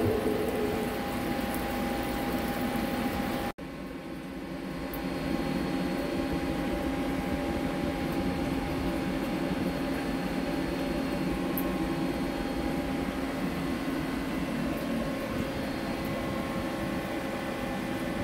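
Steady mechanical hum of a CNC vertical lathe in a machine shop, with several steady tones over a low noise. There is a brief dropout about three and a half seconds in.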